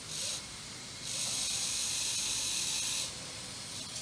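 Z-gauge model railway transfer table's drive running in spells: a high hiss that starts briefly just after the beginning, runs again for about two seconds, then stops.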